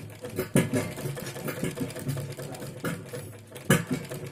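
Domestic sewing machine running steadily, stitching a straight seam through fabric, with two louder knocks about half a second in and near the end.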